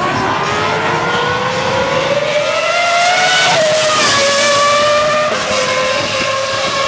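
A Formula One car's engine at high revs, rising steadily in pitch as it approaches. About three and a half seconds in, the pitch drops sharply as the car passes, with a hiss of tyres on the wet road. It then runs at a steady lower pitch as it moves away.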